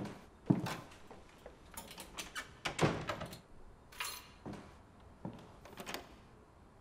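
An apartment door being handled as someone comes in: a thunk about half a second in, then a run of clicks and knocks, a brief rustle about four seconds in, and a few softer knocks near the end.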